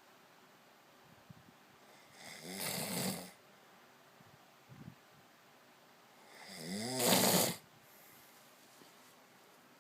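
A man snoring in his sleep: two loud, rattling snores about four seconds apart, each swelling for about a second and then cutting off.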